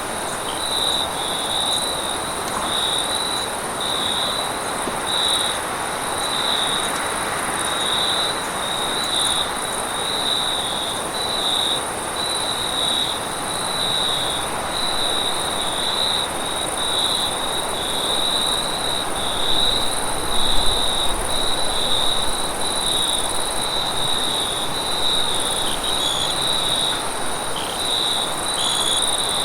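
Night-time forest insects: a cricket chirping in a steady pulse, about once a second, over a continuous high-pitched insect trill. A soft even hiss lies beneath.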